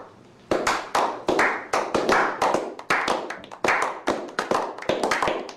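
A small group of people clapping: separate sharp hand claps about three a second, coming closer together and overlapping near the end.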